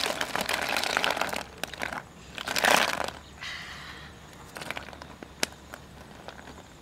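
Snails poured from a wicker basket into a pan of water: a dense clatter of shells knocking together and dropping in, in two spells, the second and loudest about two and a half seconds in, then a few scattered clicks.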